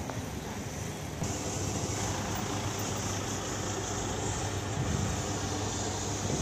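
Street traffic noise: a steady low engine hum under a hiss of vehicles. It grows louder about a second in.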